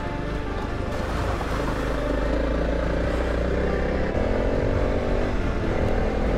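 Honda CRF300 Rally's single-cylinder engine running steadily on a dirt trail, heard from the bike, with its pitch shifting about four seconds in.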